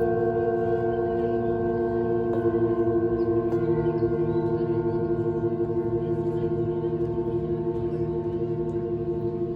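Tibetan singing bowls ringing with several long, overlapping tones that pulse slowly. A fresh tone joins about two and a half seconds in, and a higher one about a second later.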